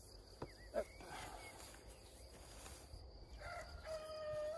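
A rooster crowing near the end: one long held call that drops in pitch as it fades.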